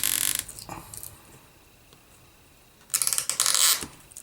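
iPhone battery's stretch-release adhesive strip crackling as it is wound onto tweezers and pulled out from under the battery, in two short bursts: one at the start and another of about a second some three seconds in.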